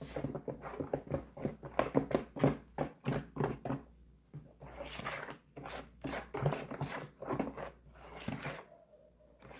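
Spoon stirring wet blended-corn batter with sugar in a bowl: quick repeated strokes, about four or five a second, for the first few seconds, then slower, heavier strokes.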